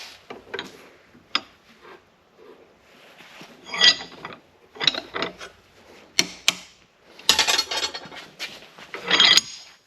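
Irregular clinks, clanks and scraping of steel on steel as forged bar stock and tools are handled, some strikes ringing briefly. A longer rattling stretch comes in the last three seconds.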